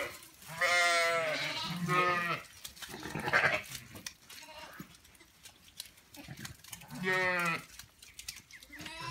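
Zwartbles sheep bleating several times: a long wavering bleat about half a second in, a shorter one about two seconds in, and another about seven seconds in.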